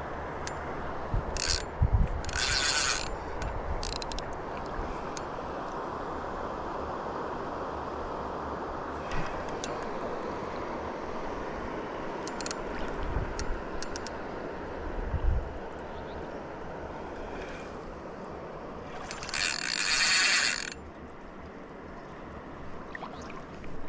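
Fishing reel being cranked in a few short whirring bursts, the longest and loudest near the end, over a steady rush of river water. A few low thumps are also heard.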